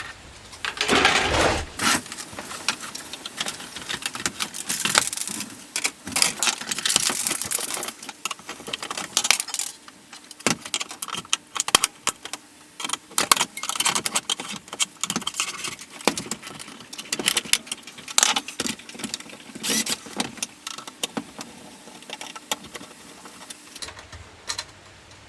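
Many clicks, clinks and rattles of small metal and plastic parts being handled while electronic scrap is taken apart by hand, with a louder burst of clatter about a second in.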